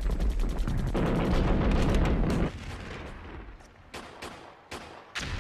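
Battle gunfire: a rapid burst of automatic fire, then about a second and a half of dense, heavy firing, thinning near the end to a few scattered single shots.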